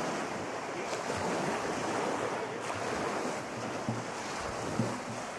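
Lake water lapping against a wooden pier, with wind blowing over the microphone. A few faint low notes come in near the end.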